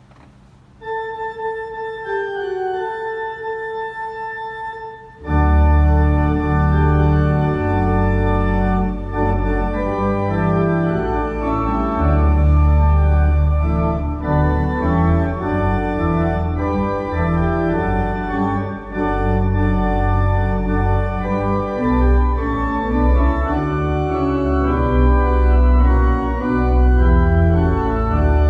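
Church organ playing: a single sustained melody line enters about a second in, then about five seconds in the full organ comes in loudly with deep pedal bass under held chords.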